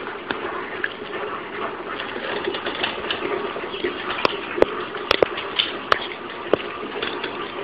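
Small dog gnawing on a stick-shaped chew held in a hand, its teeth making a handful of sharp clicks on the stick about halfway through, over a steady background hiss.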